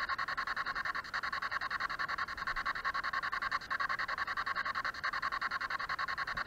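SB7 spirit box sweeping rapidly through radio stations, giving a fast, even chopping of radio static with no pauses.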